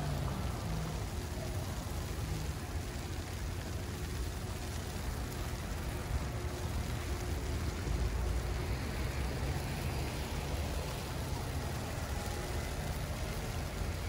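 Snowy city street ambience: a steady hiss with a low rumble of traffic, swelling slightly about halfway through.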